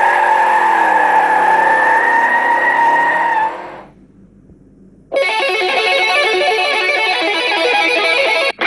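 A car engine sound effect, held steady and then fading out over about four seconds. A short pause follows, then a distorted electric guitar riff starts about five seconds in. These are alarm-tone clips from a phone alarm app.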